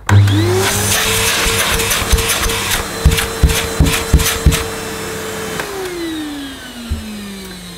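Early-1990s Hitachi CV-790 bagless vacuum cleaner with a single-speed motor, switched on and running up to a steady whine, with a few sharp knocks in the middle. It is switched off about five and a half seconds in and winds down slowly, its whine falling in pitch.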